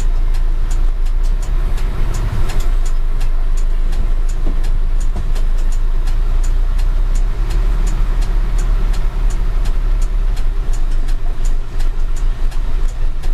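Diesel engine of an 18-tonne lorry running steadily at low speed as it creeps through a yard, heard from inside the cab. A regular light ticking, about two to three times a second, runs over the engine.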